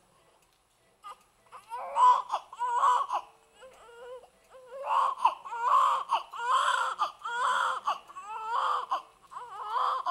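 Newborn baby crying: after a brief quiet start, a string of short, wavering wails, each under a second long, coming in quick succession.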